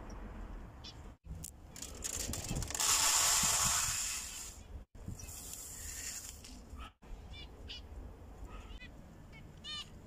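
Birdseed poured from a scoop into a plastic tray, a dry rattling hiss that is loudest about three seconds in. Near the end, zebra finches give short repeated chirping calls.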